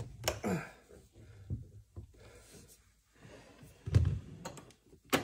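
Scattered knocks and rustling of hands working among plastic dash panels and wiring, with a heavy thump about four seconds in.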